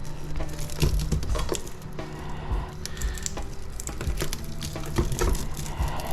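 Hand work on an electric motor's stator: irregular metallic clicks, knocks and scraping as copper windings are pried and pulled out, the windings stuck in with shellac. A steady low hum runs underneath.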